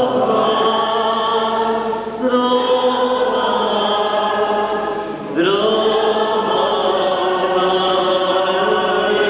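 A group of voices singing a slow church hymn together in long held notes. The notes change about two seconds in and again about five seconds in.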